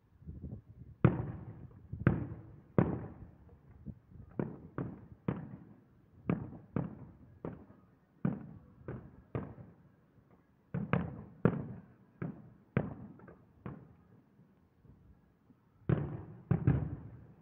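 Distant aerial firework shells bursting in a rapid, irregular series of about two dozen bangs, each trailing off in an echo. A close pair of loud bangs comes near the end.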